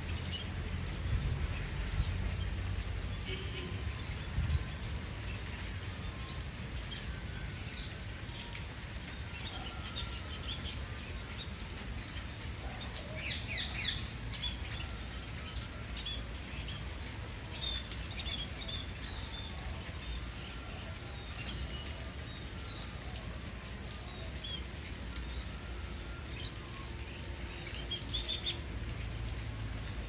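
Scaly-breasted munias (spice finches) giving short, high chirps at scattered intervals, with a quick cluster of several calls about halfway through, over a steady low rumble.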